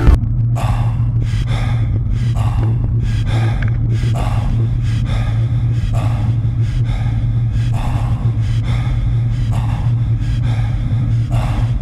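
A cyclist breathing hard in a quick, even rhythm, about two breaths a second, over a steady low rumble of wind and road noise.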